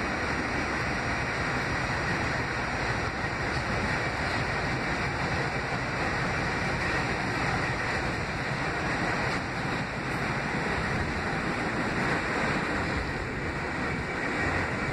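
Steady running noise of an R68A subway car at speed, heard from inside the car: an even rumble of wheels on rail.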